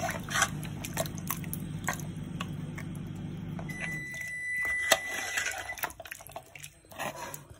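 Metal ladle stirring a steel pot of meat-and-potato curry in watery gravy: repeated clinks and scrapes against the pot with sloshing liquid, the loudest clink about five seconds in. A low steady hum runs underneath and stops about four seconds in.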